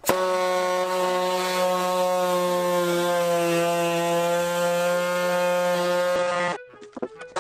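Small handheld power cutter running at a steady pitch as it cuts through a plastic car door trim panel. It stops about six and a half seconds in, a few light clicks follow, and it starts again at the very end.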